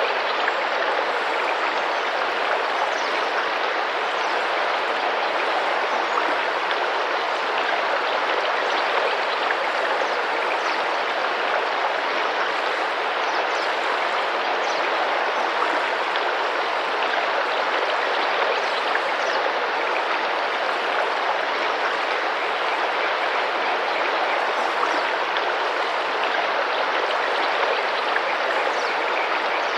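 Tropical rainforest river running and splashing steadily over rocks, an even rushing of water.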